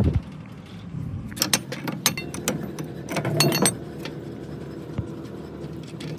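Irregular metallic clinks and clicks in short clusters, a few at a time, over a faint low steady hum.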